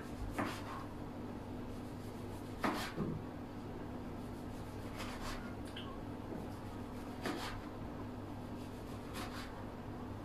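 A kitchen knife slicing a tomato on a plastic cutting board: about five separate cuts, a couple of seconds apart, over a low steady hum.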